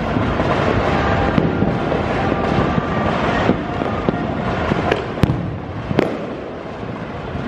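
Dense, continuous crackle and popping of many fireworks and firecrackers going off at once, with two sharp, louder bangs about five and six seconds in.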